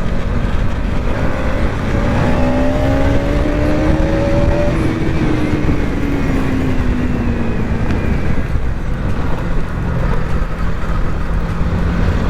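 Street traffic: a steady low rumble, with one vehicle's engine rising in pitch and then falling away as it passes, from about two seconds in to about eight.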